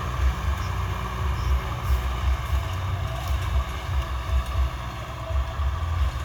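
Tractor engine running steadily with a low, uneven pulsing throb.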